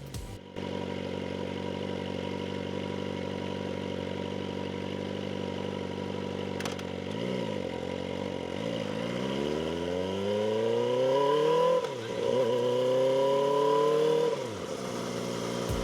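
2024 Kawasaki Ninja ZX-4RR's inline-four with its stock exhaust idling steadily, with a click and a short throttle blip about seven seconds in. It then pulls away, revs climbing through one gear, dipping sharply at a shift near twelve seconds, and climbing again. Near the end the throttle closes and the revs fall back to a steady lower note.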